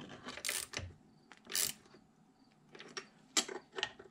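Hand ratchet clicking in short, irregular runs as bolts are tightened, with light metal clinks of the socket and tool on the steel tool rest.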